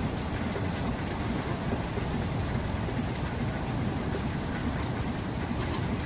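Steady rain falling, an even, constant noise with a strong low rumble.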